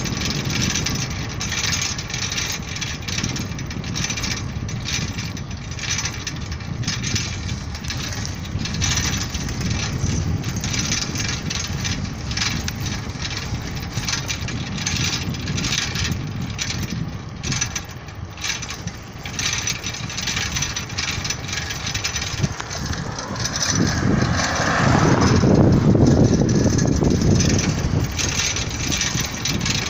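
Steady road and traffic noise heard while moving along a street, with frequent small knocks and rattles. About three-quarters of the way through, a vehicle passes, swelling louder for a few seconds.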